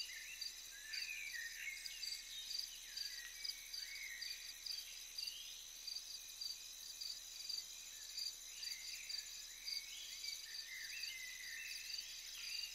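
Outdoor nature ambience: insects chirping in a steady, even pulse, with birds giving short chirps now and then.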